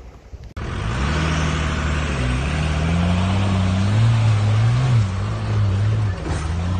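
The Cummins 6BT inline-six turbo diesel in a Mitsubishi L200 pickup works hard as the truck climbs a steep off-road hill, its pitch rising and falling with the throttle. The engine comes in abruptly about half a second in.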